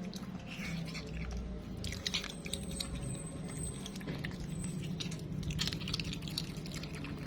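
Otter eating: wet, irregular chewing and crunching with a few short, thin high squeaks, one held for about a second near the middle.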